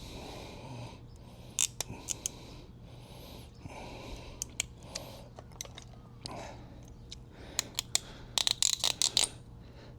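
Small clicks and light scrapes of plastic carburetor parts being handled, with a quick flurry of clicks near the end, over a faint steady hum.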